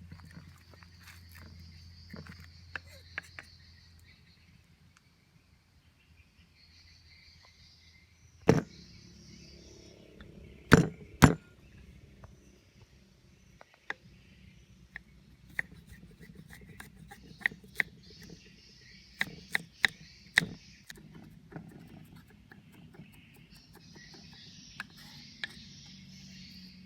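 Insects chirring steadily in the background, with scattered sharp knocks and clicks on top; the loudest three come about eight to eleven seconds in.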